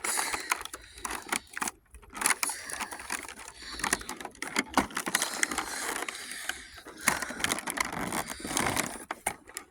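Handling sounds of a cardboard advent calendar door being pried open and the small plastic toy inside taken out: irregular clicks, scrapes and crinkling.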